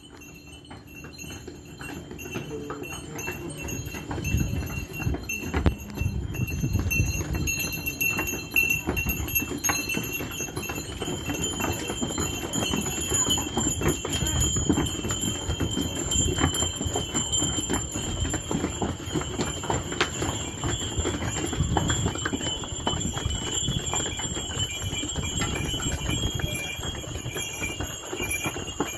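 Hooves of a line of saddled donkeys clip-clopping on a cobbled stone lane as the string walks past, with their bells ringing steadily. The hoofbeats grow louder over the first few seconds as the animals draw near, then carry on as a dense, irregular clatter.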